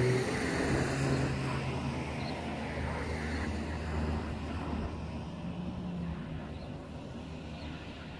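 Vehicle engine droning with a low hum, loudest at the start and slowly fading.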